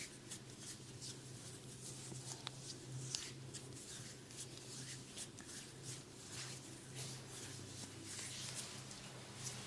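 Hands rubbing and stroking skin in a massage: a run of soft, irregular brushing strokes, one or two a second, over a steady low hum.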